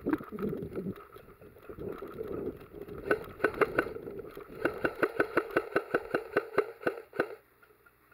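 A player running through dry leaf litter and brush, the footfalls and the rattle of carried gear making a fast, regular run of knocks that stops abruptly as he comes to a halt.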